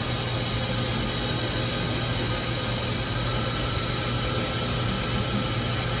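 Automated key-cutting kiosk running: a steady machine hum and hiss, with a faint high tone joining about three seconds in.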